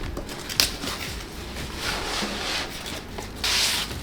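Packaging being handled and opened: a sharp click about half a second in, then two spells of crinkly rustling, the louder one near the end.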